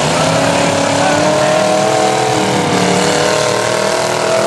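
Demolition derby cars' engines running hard and revving, their pitch wavering up and down over a wash of mechanical noise.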